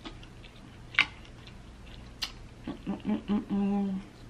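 A woman humming "mmm" while eating: a few short hums, then one held hum near the end. Before it, a sharp click about a second in and a fainter one a second later, from the food or her mouth.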